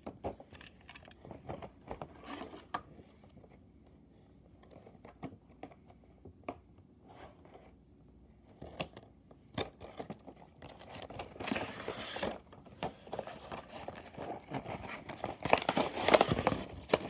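A toy-train box being opened by hand: scattered light clicks and taps, then from about ten seconds in, cardboard and plastic packaging crinkling and tearing, loudest near the end.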